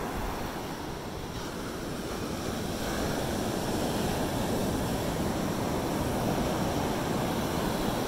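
Ocean surf breaking offshore and washing up the sand in a steady rush of water, growing a little louder a few seconds in.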